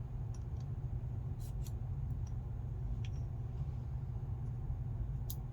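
A few faint, scattered light clicks of small lock pins and parts being handled, over a steady low hum.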